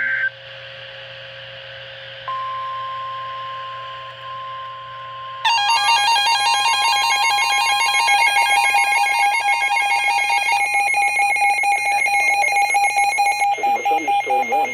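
Emergency Alert System warning tones. A steady single electronic tone starts about two seconds in. A few seconds later a louder, rapidly warbling electronic tone signal joins it and runs for about eight seconds, before the spoken announcement begins near the end.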